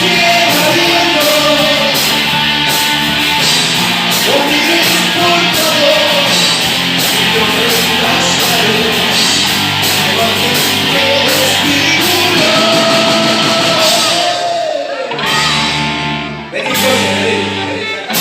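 Live rock band playing: distorted electric guitar, bass, drums with cymbals, and a sung vocal line. Near the end the drums and cymbals drop out for about two seconds while the bass carries on, then the full band comes back in.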